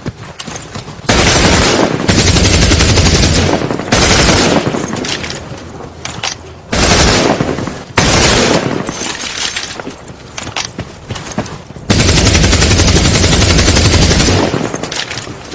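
Machine gun firing in several long bursts of rapid automatic fire, each two to three seconds long, with scattered single shots and echoing decay between bursts.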